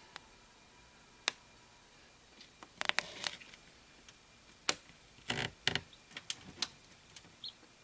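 Irregular sharp clicks and taps, a cluster about three seconds in and more around five to six seconds, then a brief high peep from a newly hatching chick near the end.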